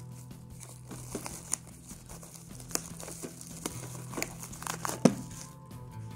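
Clear plastic wrapping crinkling and crackling as it is peeled off a steelbook case, in irregular sharp crackles, the loudest about five seconds in.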